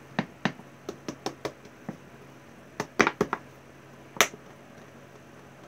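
A series of short, sharp clicks and taps from hands handling a small model tree and its clay base on a cutting mat. There is a quick cluster about three seconds in and one louder click just after four seconds.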